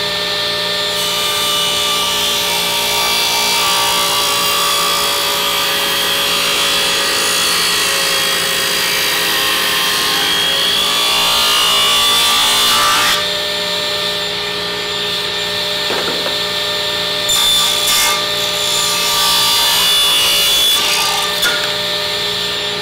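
Delta 36-725 table saw with a thin-kerf blade, its motor running at a steady whine while the blade cuts lengthwise through a 4x4 fed slowly. The motor holds its speed under this slow feed. A long cut is followed, about 17 s in, by a shorter second pass.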